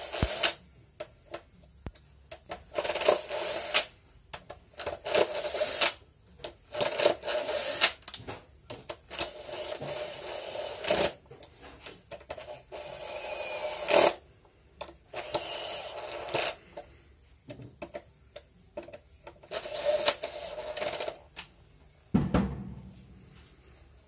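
Cordless drill-driver turning small screws in a Brother toner cartridge's metal blade bar, its motor running in repeated bursts of about a second, with clicks and rattles of the screws and plastic housing between bursts. A low thump near the end.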